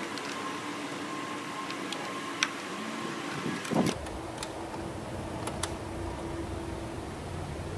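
Light clicks and a short scrape of a hand tool on the top of a BMW N54 engine, over a steady mechanical hum.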